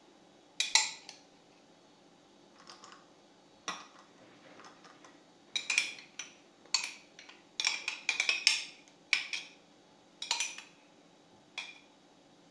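Metal spoon clinking and knocking against a glass and a small bowl while butter is scooped onto chocolate pieces: about a dozen irregular sharp clinks, a single one early and most of them packed into the second half.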